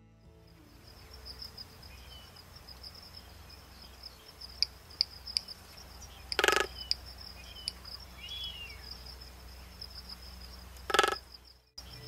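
Outdoor natural ambience: insects giving a steady, high, pulsing buzz, with small bird chirps scattered through it. Two short, louder calls stand out, one about halfway through and one near the end.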